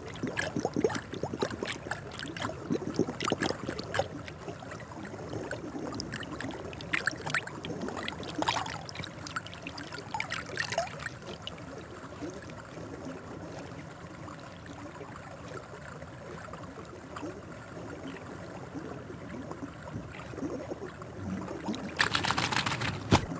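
Water splashing and lapping around a young Japanese macaque swimming in a hot-spring pool, over a steady trickle of running water. The splashing is busiest in the first half, and a short, louder rush of noise comes near the end.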